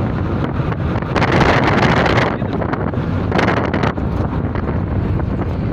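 Air buffeting the microphone over the steady road and engine rumble of a Chevrolet Celta on the move, with louder gusts of hiss about a second in and again around three and a half seconds in.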